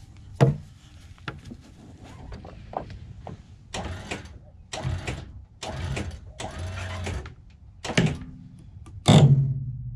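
Sailboat's electric winch hauling in a tensioned line in four short runs about a second apart, jogged on and off to take up the load. Two heavy knocks follow near the end, the second with a low ringing tail.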